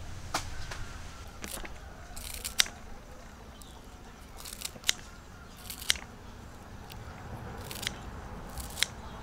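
Kitchen scissors snipping through bunches of fresh green herb stems: sharp single snips, roughly one every second at an uneven pace.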